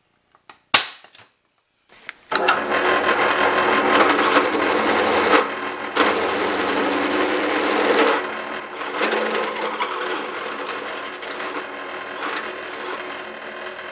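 One sharp snap of a center punch marking a hole centre, then a drill press boring a 9/16-inch hole through an aluminium flange plate: the motor's steady hum under the bit's cutting noise, loudest for the first several seconds and easing after about eight seconds.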